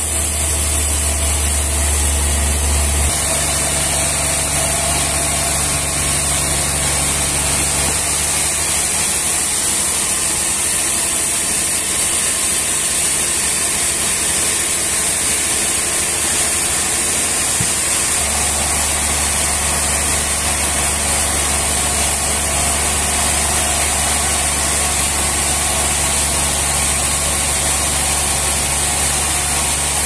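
Band sawmill running and sawing a trembesi (rain tree) slab: a steady machine noise with a constant high hiss over a low hum. The hum drops about three seconds in and comes back up a little past halfway.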